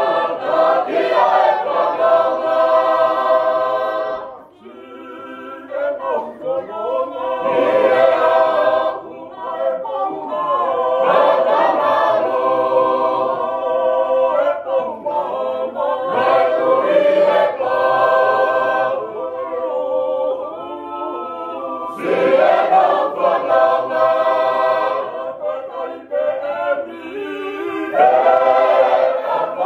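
Tongan church choir singing a hiva usu, a traditional unaccompanied hymn, in several voice parts (melody, tenor and alto). The chords are held in long phrases with short breaks between them, the clearest gap coming about four seconds in.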